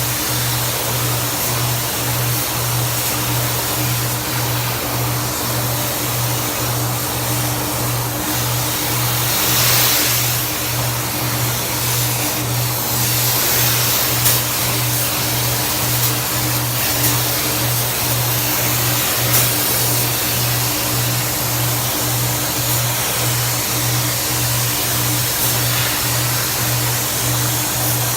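Background music with a steady bass beat, about two pulses a second, over a constant hiss.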